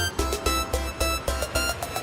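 Background music with a steady electronic beat of about four pulses a second.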